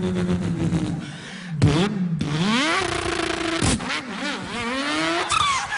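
A man's voice imitating a car engine: a steady drone that fades about a second in, then revs climbing in pitch, each climb broken off sharply and starting lower again, like gear changes under acceleration.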